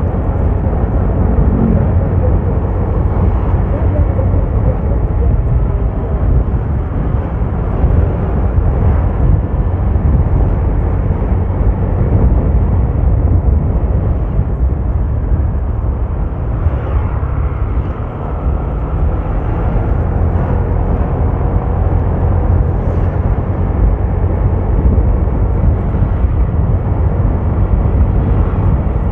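Steady loud rumble of a vehicle on the move: engine, tyre and wind noise, mostly low and even, with a brief dip about two-thirds of the way through.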